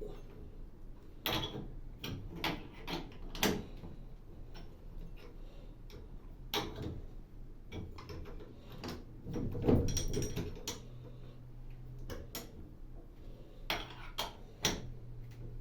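Scattered clicks and knocks of parts and tools being handled while setting up a washing machine, with a louder clatter about ten seconds in, over a low steady hum.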